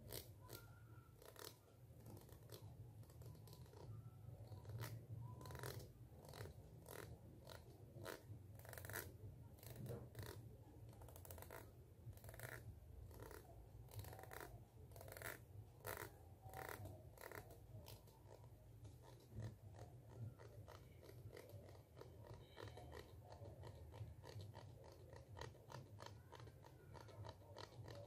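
Fingernails scratching and flicking along the teeth of a plastic comb held close to the microphone: faint, irregular runs of clicky strokes, a few a second, over a steady low hum.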